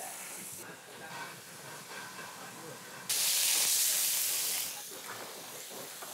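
Meat skewers sizzling in a hot frying pan: a loud hiss that starts abruptly about three seconds in and lasts about a second and a half, over quieter kitchen sounds before it.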